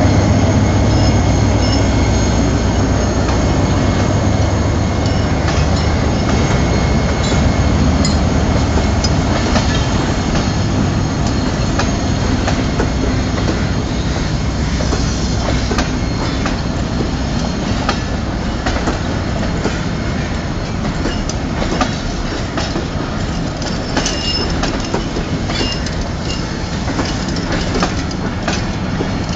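Passenger coaches of a Pakistan Railways express rolling past, the wheels clicking steadily over rail joints under a continuous rumble, with a few brief high squeals. The EMD diesel locomotive's engine hum is heard in the first few seconds and fades as it moves away.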